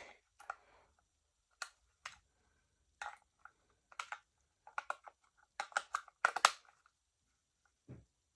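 Irregular plastic clicks and clacks as batteries are fitted into a wireless mouse's battery compartment, quickest and loudest a little past the middle, with a dull thump near the end.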